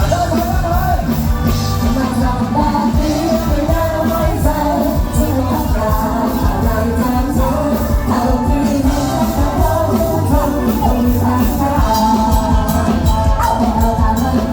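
Live Thai luk thung band music played loud, with a steady driving beat and a wavering lead melody over it.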